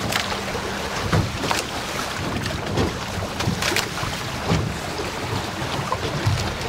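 Water rushing along the hulls of a sailing catamaran under way, with wind noise on the microphone and irregular splashes.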